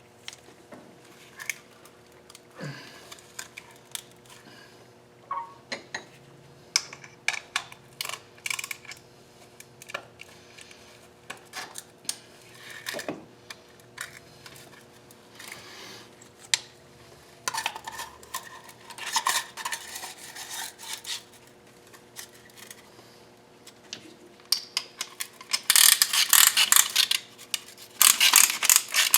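Metal tools and engine parts clinking and knocking as they are handled during piston fitting, with many scattered sharp clinks. Two longer hissing, rasping stretches come in the second half, the loudest near the end.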